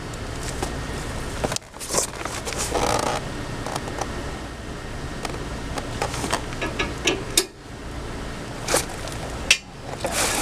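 Scattered metallic clicks and short scrapes of wrenches working on a steel tow dolly fender bracket as it is levered straight, over a steady low rumble.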